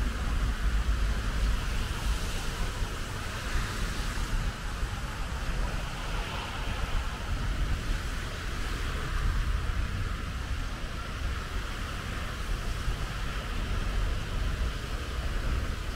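City road traffic on wet streets: a steady hiss of cars and a bus passing, over a constant low rumble.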